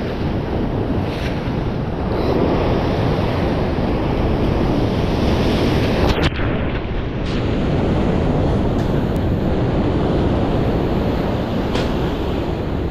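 Ocean surf surging over a rock ledge, with wind buffeting the microphone. About six seconds in, a warning wave washes up over the ledge and drenches the camera, and the sound goes briefly muffled.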